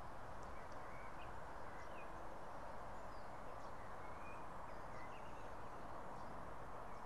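Steady outdoor background noise with faint, short bird chirps scattered through it, about one every second or so.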